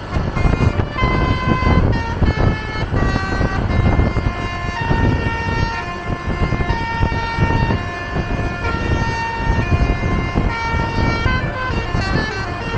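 Tunggal Jaya "Kids Panda" bus's basuri telolet horn playing a tune of held and stepped notes, over a steady low rumble of engine and road noise. Near the end the notes turn short and quick.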